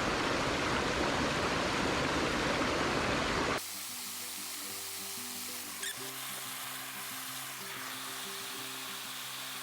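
Mountain stream rushing loudly and steadily. It cuts off suddenly after about three and a half seconds to background music of slow, held notes.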